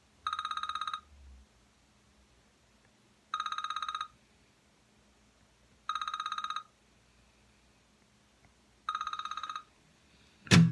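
A telephone ringing four times, each ring a short trilling burst, about three seconds apart. Just before the end an acoustic guitar comes in loudly, strummed and picked.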